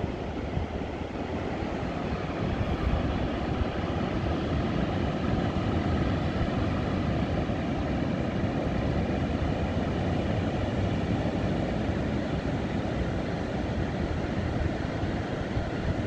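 Steady rush of ocean surf breaking along a wide beach, with wind buffeting the microphone.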